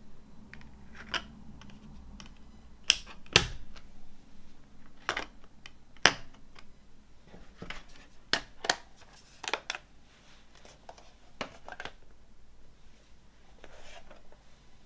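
Handling of a movie box set and its cases: a string of sharp, irregular clicks and taps, with a softer rustle near the end.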